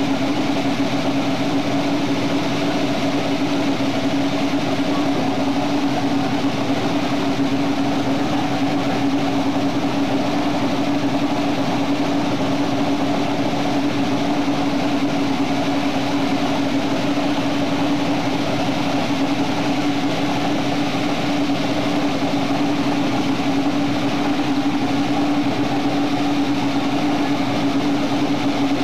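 An engine idling steadily at one even pitch, without revving.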